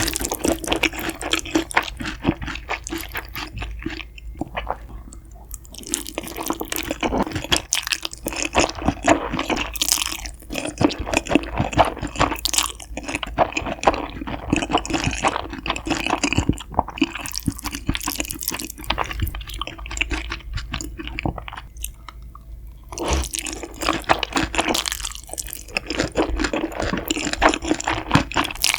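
Close-miked eating sounds: a person chewing food with wet, smacking mouth noises, with a couple of short pauses.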